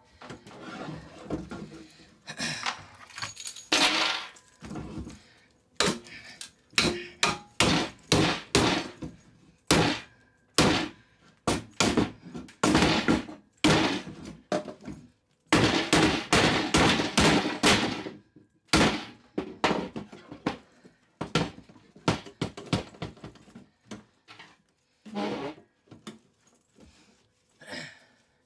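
A screwdriver and a pry bar clanking and scraping against the metal case of a small biometric pistol safe as its lid edge is pried at, in irregular runs of sharp metallic knocks with short pauses between.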